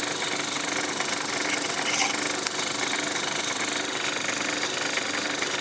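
Small lathe motor running steadily, spinning the workpiece for a model locomotive chimney: an even hum with a faint steady tone and light ticks.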